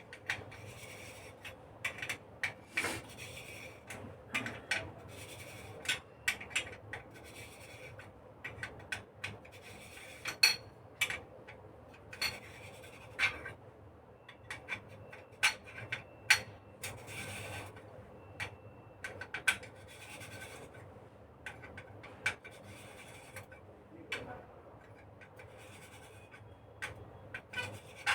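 Metal scraping and irregular sharp clicks as the retainer ring of a flame safety lamp is worked loose with a tool.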